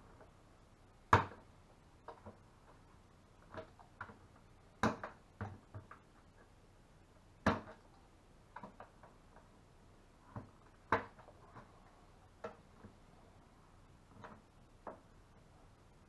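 Irregular sharp clicks and scrapes of a hand tool cutting and trimming a hole in the plastic of a 5-gallon bucket: about a dozen and a half strokes with uneven pauses between them, the loudest about a second in and near the middle.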